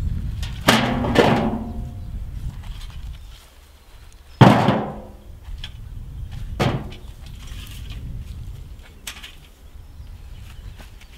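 Sawn firewood logs knocking as they are handled and set down. There is a pair of clunks about a second in, a loud ringing knock about four and a half seconds in, and lighter knocks near six and a half and nine seconds. A low steady rumble fades out over the first three seconds.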